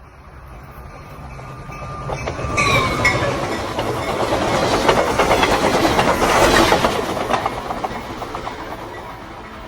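A train passing by, swelling to a peak in the middle and fading away, with the rapid clickety-clack of wheels over rail joints. A brief high tone that drops slightly in pitch sounds about two and a half seconds in.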